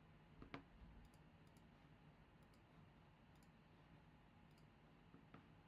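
Near silence with a few faint computer clicks: a sharp one about half a second in and another near the end, with fainter ticks between.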